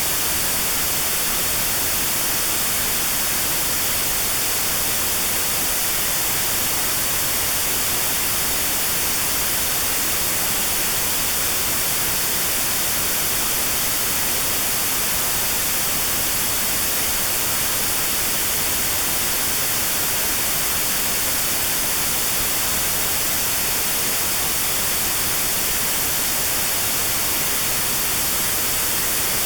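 Steady white noise with a narrow band cut out around 4 kHz: notched sound therapy for tinnitus. It is an even hiss throughout, with no change.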